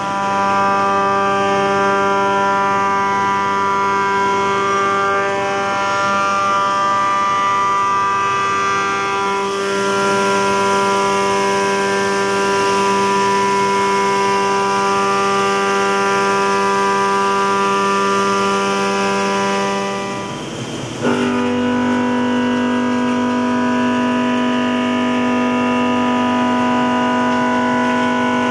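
CNC machining center milling low-carbon steel plate. A 1-inch two-flute high-feed end mill at about 5,900 RPM cuts a full slot with a steady pitched whine over a hiss. After a short break about 20 seconds in, a 2-inch five-flute face mill at about 2,960 RPM takes over with a steady, slightly higher whine.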